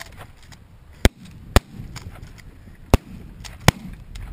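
Shotgun shots during a goose hunt: four sharp cracks at uneven intervals, two of them half a second apart.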